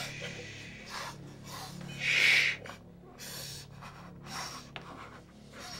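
A person breathing hard and unevenly, a series of short noisy breaths with one sharp, loud intake about two seconds in, over a faint steady low hum.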